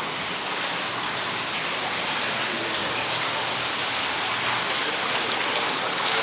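Steady splashing of water from a fountain.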